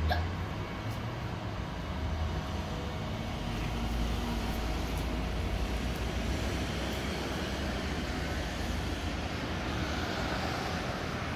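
Steady outdoor rumble of passing road traffic, swelling about four seconds in.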